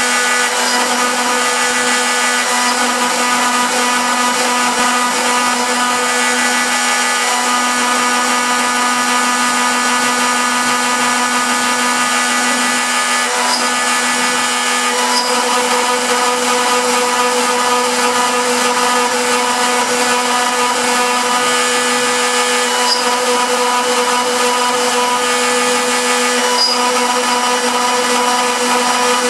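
CNC router spindle running steadily with a constant whine while a small engraving bit carves lettering into a fibreboard (MDF) disc.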